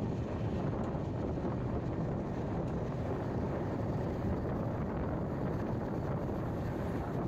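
Steady running rumble of the 16584 Latur–Yesvantpur Express moving along the track, heard from on board, with wind rushing over the microphone.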